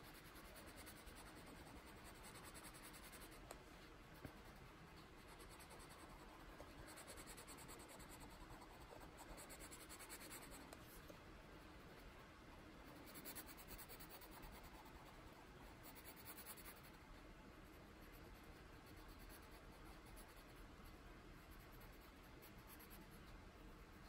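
Faint, steady scratching of a Prismacolor Parma Violet coloured pencil shading on the paper of a colouring book.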